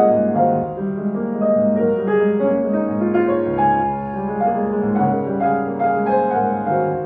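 Solo piano music: a melody of single notes moving over sustained lower chords.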